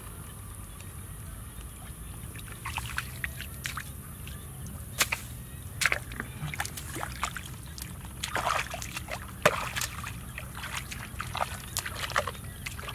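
Wet mud and shallow muddy water being worked by hand and foot: irregular squelches, sloshes and small splashes that start a couple of seconds in and come in clusters, the loudest about two-thirds through.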